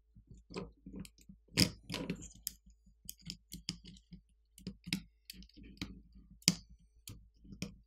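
Irregular small clicks and taps of a metal pry tool and fingertips against a smartphone's main board and frame as the board is pried up and lifted out, with a few sharper clicks, the loudest about six and a half seconds in.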